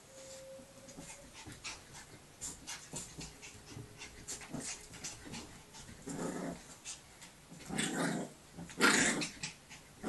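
Staffordshire Bull Terrier puppy and its mother play-fighting: light scuffling with small growls, and three louder growls about six, eight and nine seconds in, the last the loudest.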